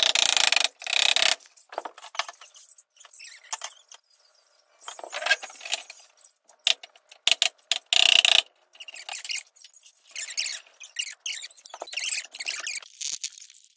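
Irregular clacks, scrapes and rattles of wooden cat-tree parts being handled and fitted together by hand. The loudest scraping bursts come at the very start and again about eight seconds in.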